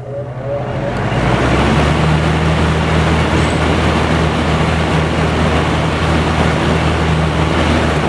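A 12-inch Penncrest two-speed box fan with a General Electric motor starting up on high speed. It spins up over about the first second and a half, then runs steadily: a motor hum under a loud rush of moving air.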